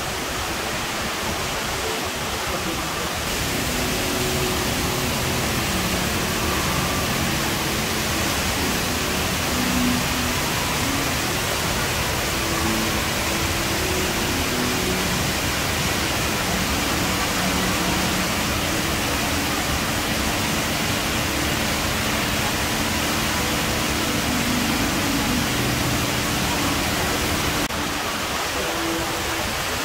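The HSBC Rain Vortex, a 40-metre indoor waterfall falling from the roof to the basement, makes a steady rush of falling water.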